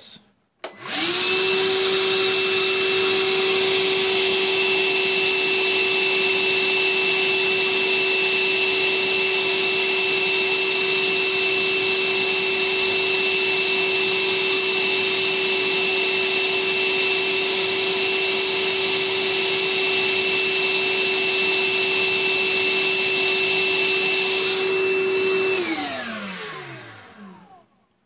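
Milwaukee M18 cordless wet-dry vacuum with its filter removed, a brushed-motor model, switched on about a second in and running with a steady whine over a rush of air. Near the end it is switched off and winds down, its pitch falling away.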